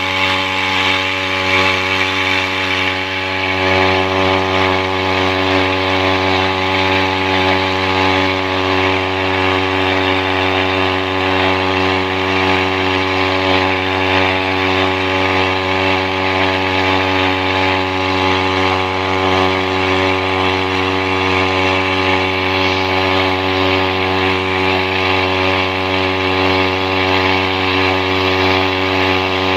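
Small outboard motor running steadily under way, its pitch holding even at cruising speed.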